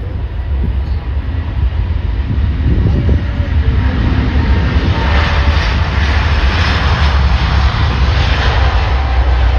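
Jet airliner engines, a broad rushing noise over a deep rumble, growing louder about halfway through as the aircraft passes close.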